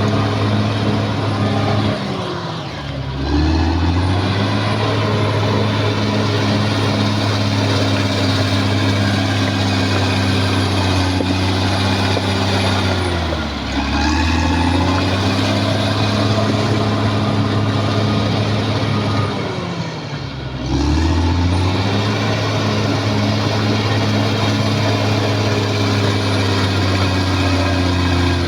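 Caterpillar D6R XL crawler bulldozer's diesel engine running hard and steady. Three times its pitch sags for about a second and climbs back up, about two seconds in, in the middle and about two-thirds of the way through.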